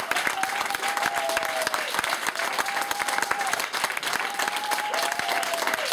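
Audience applauding: dense, steady clapping, with a high call that rises and falls, repeated every second or so over it.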